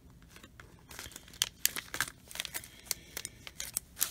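Small plastic zip-top bags of rhinestone spacer beads crinkling as they are handled. The crackles come as irregular sharp clicks from about a second in.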